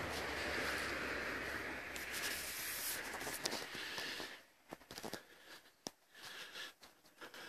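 Footsteps through dry fallen leaves: a steady rustling that drops away about four seconds in, leaving separate crackling, snapping steps.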